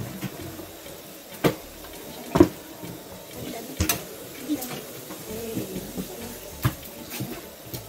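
A steady hiss under several sharp knocks and clicks of kitchen utensils on a board and pan, the loudest about two and a half seconds in.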